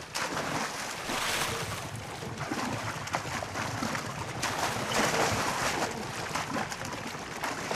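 Water splashing and churning as a Nile crocodile lunges at wildebeest at the water's edge and the wildebeest bolt through the shallows, surging loudest about a second in and again around five seconds.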